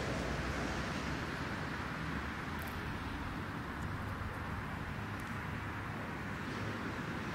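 Steady rumbling background noise, even in level throughout, with a few faint high ticks in the middle.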